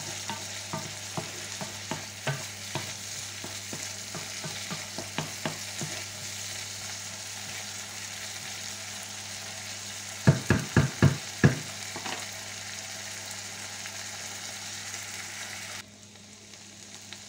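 Diced lardons and onion sizzling in a frying pan while being stirred with a wooden spoon, with light clicks of the spoon on the pan for the first few seconds. About ten seconds in come five quick knocks, and near the end the sizzle suddenly drops quieter.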